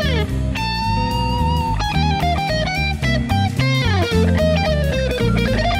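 Background music: a melody that slides and bends between notes over a steady bass line.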